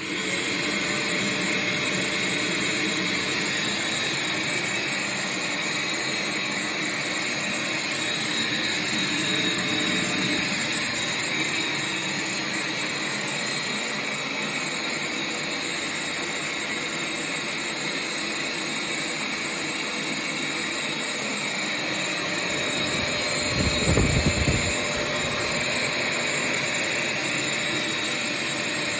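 Wet-and-dry vacuum cleaner running steadily, a continuous motor whine and rush of air. About 24 seconds in comes a brief low rumbling surge, the loudest moment.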